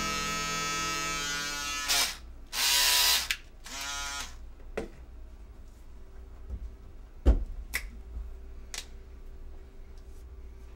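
Handheld electric moustache trimmer buzzing in two short bursts, about two and a half and four seconds in. A held musical chord ends before them, and a few light clicks and one sharp thump follow.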